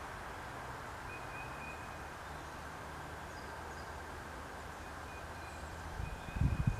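Steady outdoor background hiss over a faint low hum, with a brief faint high chirp about a second in. Near the end come a few loud, low thumps on the microphone.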